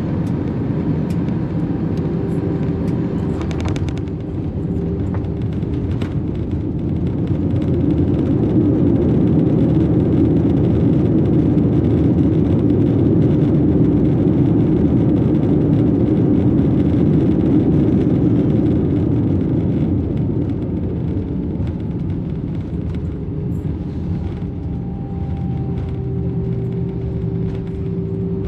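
Airbus A320 landing, heard from inside the passenger cabin: a loud steady rumble of engines and runway roll, with a few sharp clicks about three to four seconds in. The rumble swells about eight seconds in and holds for roughly ten seconds, as during reverse thrust on the rollout, then eases as the aircraft slows.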